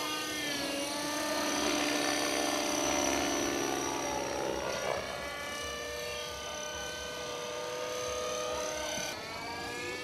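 RC model helicopter flying overhead, its motor and rotor making a steady whine of several tones. The pitch shifts about halfway through.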